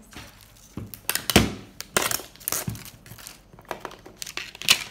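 Crinkly plastic and foil toy packaging rustling and crackling as it is handled and opened, in a series of uneven bursts, the loudest about one and a half seconds in.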